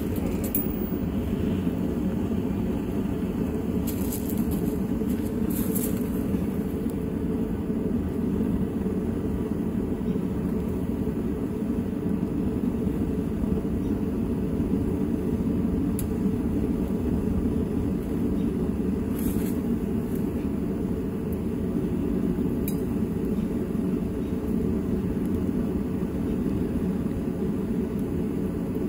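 Propane weed-torch burner running steadily into a homemade foundry furnace, a low even rushing. A few light metal clinks sound over it.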